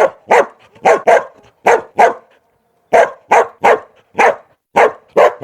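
Dog barking over and over in short, loud barks, about two to three a second, with a brief pause a little over two seconds in.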